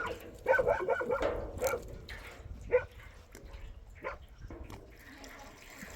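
A dog barking: a quick run of short barks over the first second or two, then a few single barks.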